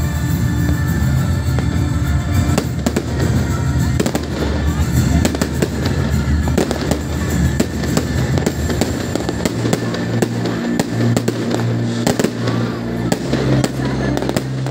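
Aerial fireworks display: shells bursting with repeated bangs and crackling throughout, over music.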